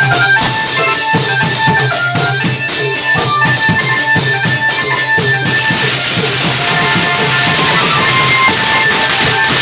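Thai klong yao long-drum ensemble playing: steady drum beats under a melody of held notes. About five and a half seconds in, a bright wash of cymbals comes in and carries on.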